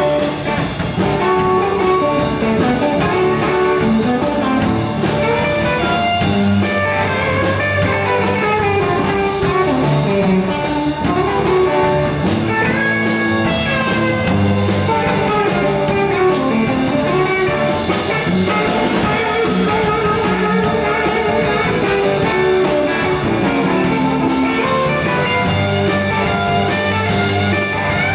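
Live 1950s-style electric blues band playing an instrumental passage: two electric guitars over drums and bass, with an amplified harmonica played into a cupped microphone.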